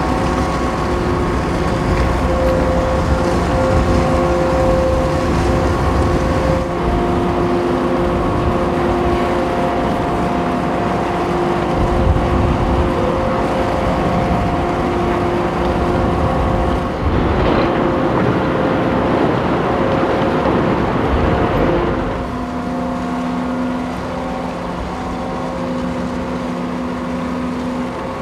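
A berthing car ferry's diesel engines running close by: a steady drone with several held tones over a low rumble. Roughly two-thirds of the way in there is a few seconds of louder rushing, churning noise. After that the drone settles lower and a little quieter.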